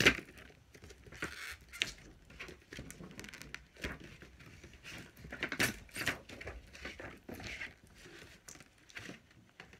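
A cardboard toy box being opened and its packaging handled: scattered rustling, scraping and clicks of cardboard and plastic, with a sharp knock right at the start.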